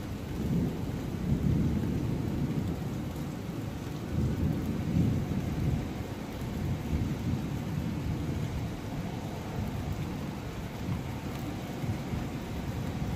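Thunder rumbling on and off through steady rain; the low rumble swells and fades several times.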